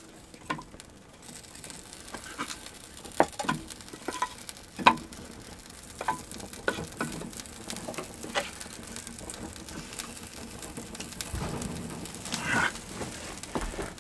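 Small wood fire crackling in a metal fire basket, freshly lit: irregular sharp pops and snaps over a low hiss, with a louder rustling stretch near the end.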